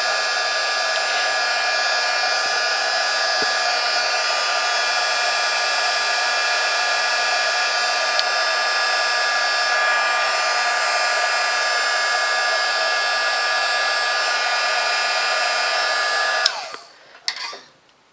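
Handheld craft heat gun blowing steadily with a constant whine, drying wet paint on a watercolour-paper card. It switches off abruptly about sixteen and a half seconds in, followed by a few light handling clicks.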